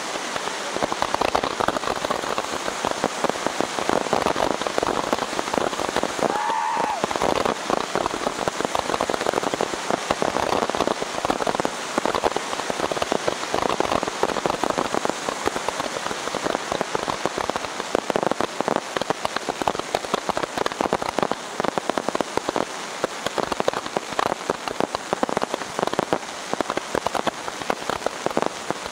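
Firework display: a dense, continuous crackling and popping from a barrage of ground-fired fireworks, with no breaks.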